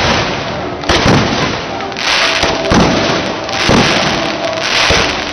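Aerial firework shells bursting overhead: five loud bangs about a second apart, each trailing off in echo.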